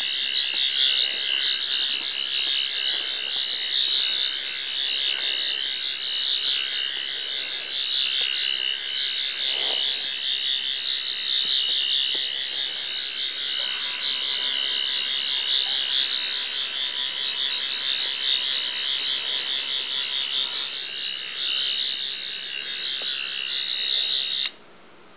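Toy replica of the Eleventh Doctor's sonic screwdriver sounding its electronic sonic effect: a continuous high warbling whine that cuts off suddenly near the end.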